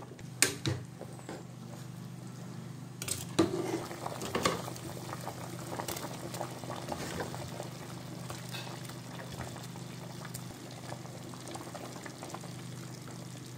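Pot of soup boiling and bubbling as a spoon stirs it, knocking against the aluminium pot a few times in the first few seconds, over a steady low hum.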